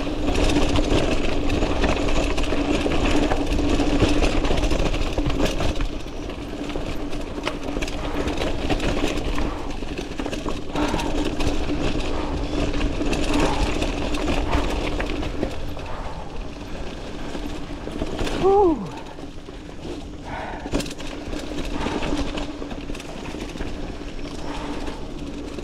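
Mountain bike rolling fast over a dirt and leaf-covered trail: tyre noise, wind and the rattle of the bike over bumps, with a steady hum that fades out about two-thirds of the way through. A short sound falling in pitch comes about 18 seconds in.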